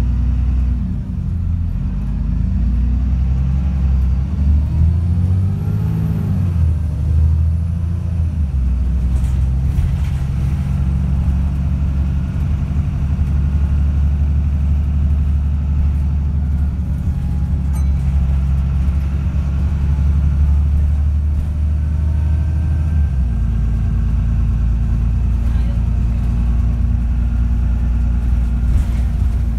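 Diesel engine of an Optare Olympus double-decker bus pulling under load, heard from inside the passenger saloon. The engine note rises and drops through gear changes in the first several seconds, then runs steadily, with another shift about three-quarters of the way through.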